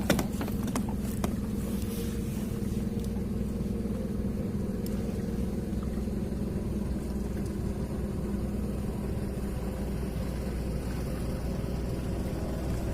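Small boat's engine running steadily at cruising speed, a constant low drone.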